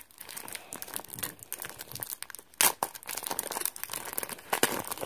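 Clear plastic shrink-wrap crinkling and tearing as fingers peel it off a small plastic toy box: a dense run of crackles, with a couple of louder crackles partway through.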